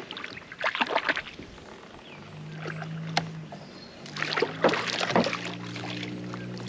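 Water splashing and sloshing around a fishing kayak in two short spells, about half a second in and about four seconds in. A steady low hum comes in about two seconds in and keeps going.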